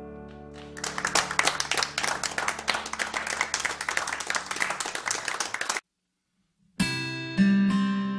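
An acoustic guitar's last chord rings out, then an audience applauds for about five seconds and is cut off abruptly. After a second of silence, an acoustic guitar starts picking the slow opening notes of a new song.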